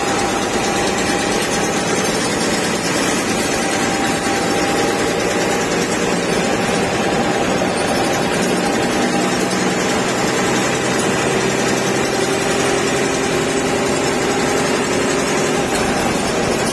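Bus engine running and road noise inside the cab while driving, a steady din with faint whining tones that drift slowly in pitch.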